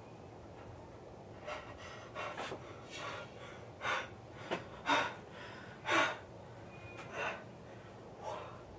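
A frightened boy breathing hard in short, uneven gasps, roughly one a second.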